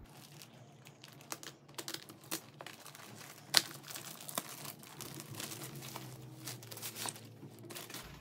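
Clear plastic packaging bag crinkling and crackling as it is handled and opened by hand, in irregular crackles with one sharp crackle about three and a half seconds in.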